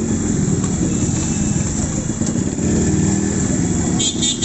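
Yamaha RX100's two-stroke single-cylinder engine running at low speed, with a fast steady pulsing beat. A brief high-pitched sound cuts in near the end.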